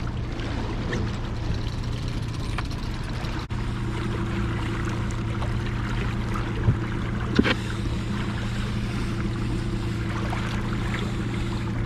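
Outboard motor running steadily at trolling speed, a constant low hum, with water rushing and lapping along the hull. Two short knocks come about seven seconds in.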